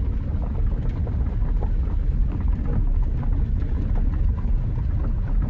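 Low, steady rumble of a vehicle heard inside its cabin.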